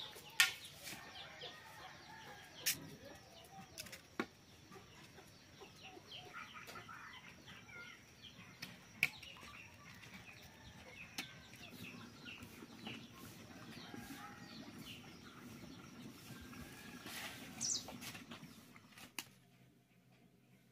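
Rural outdoor ambience: small birds chirping and chickens clucking, with a thin steady high tone underneath. A few sharp knocks stand out, the loudest about half a second in.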